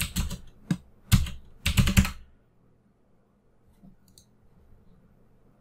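Computer keyboard: several key taps in quick succession over the first two seconds, typing in a number.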